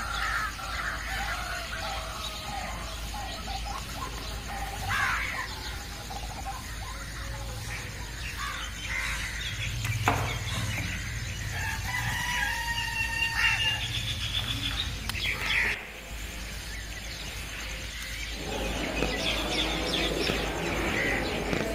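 A rooster crowing, with other birds calling.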